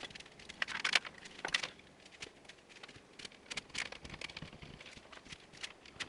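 Light plastic clicks, taps and rattles of a PC case fan being handled and fitted against the front of a computer case, irregular, with a cluster of sharper clicks in the first second and a half.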